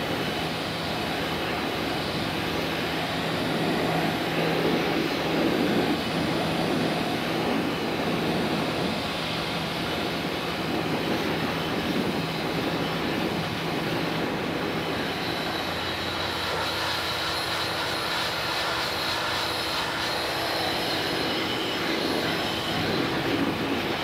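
SunJoe SPX-9009-PRO electric pressure washer running steadily, its motor and pump humming under the hiss of the water jet spraying a metal kitchen hood baffle filter. The hum shifts lower about two-thirds of the way through.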